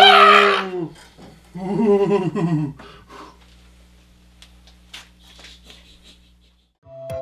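A man laughing: a loud drawn-out vocal burst, then a second stretch of laughter, trailing off into faint stifled snickers and breaths.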